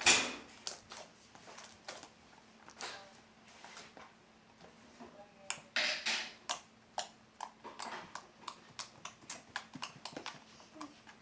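Homemade slime being squeezed and pressed by hand: a run of irregular soft clicks and squishes, with a louder squish at the start and another about six seconds in.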